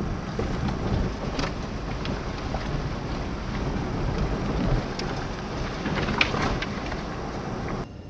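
A car driving, with steady road and wind noise and a few light knocks; the noise drops off suddenly near the end.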